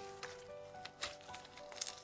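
Thick clay-textured slime being kneaded and pressed by hand, giving a few short squishy clicks and pops, the loudest about a second in. Soft background music plays a slow melody underneath.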